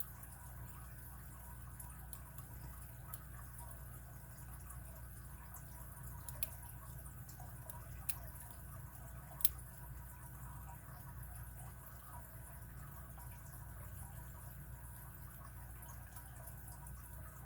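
Faint scratching and light metallic clicks of a lock pick working the pins of a five-pin Abus 41/45 pin-tumbler padlock held under a tension wrench. There are a few sharper single clicks, the loudest about nine and a half seconds in, over a steady low hum.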